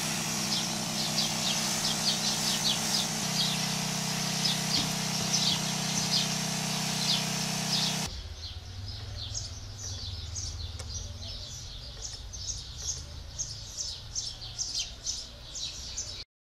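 Small birds chirping repeatedly, short high calls throughout, over a steady hiss and a low hum. About halfway through the background changes abruptly, the hum giving way to a low rumble while the chirping goes on.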